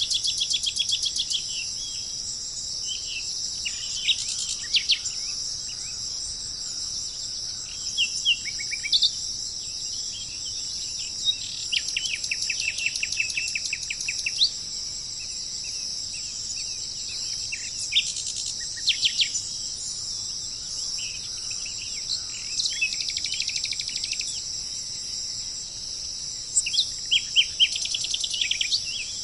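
Steady high-pitched insect drone from crickets or cicadas, with birds calling over it. The birds give short sharp chirps and several rapid trills of quickly repeated notes.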